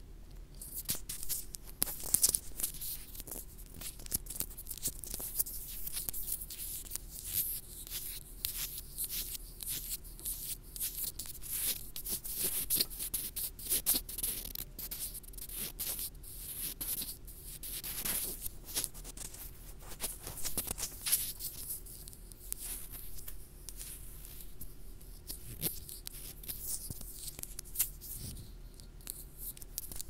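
Fingertips rubbing, scratching and tapping directly on a wired earphone's inline microphone, giving a close, crackly scratching full of sharp clicks, mostly in the high hiss. There are louder flurries about two seconds in and again around eighteen seconds.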